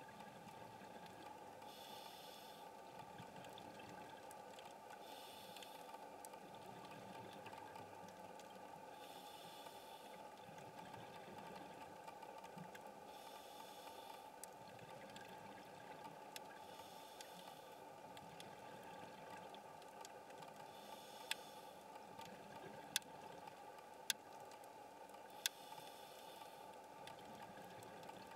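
Faint underwater sound picked up through a camera housing: a steady low hiss, with a scuba diver's regulator breaths hissing about every three to four seconds. Four sharp clicks come near the end.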